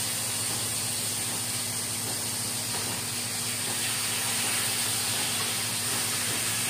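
Blue marlin steaks frying in a pan on a gas stove: a steady, even hiss over a low steady hum.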